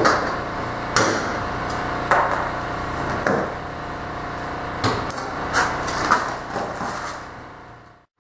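Riveting on an ultralight airframe: a string of sharp knocks, spaced about a second or so apart, over a steady hum. It fades out near the end.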